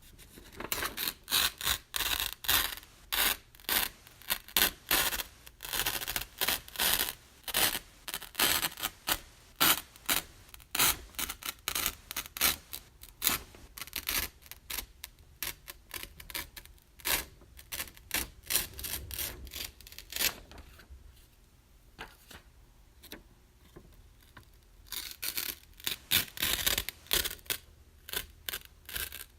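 Paper being ripped over and over: a long series of short tearing strokes, many in quick runs, easing off about twenty seconds in before the tearing picks up again near the end.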